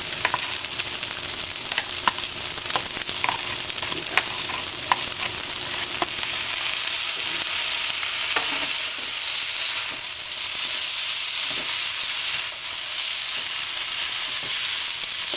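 Fried rice with vegetables and chicken sizzling in oil in a hot wok while being stirred: a steady frying hiss with the utensil clicking and scraping against the wok, the clicks about once a second at first and fewer in the second half.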